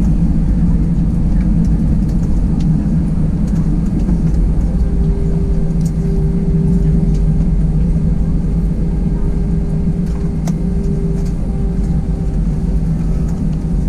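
Airbus A320 cabin noise heard from a window seat: a loud, steady rumble of the engines and airframe, with a steady hum tone that sets in about four to five seconds in and holds.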